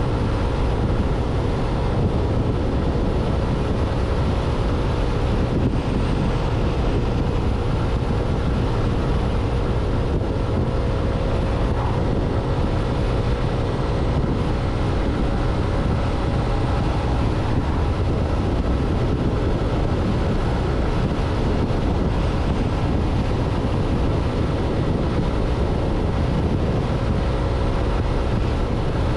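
Royal Alloy GT150 scooter's engine running steadily at cruising speed, with wind rushing over the microphone.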